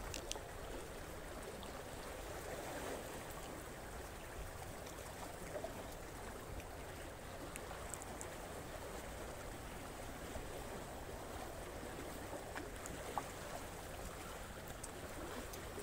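Steady wash of sea water lapping, with a few faint clicks.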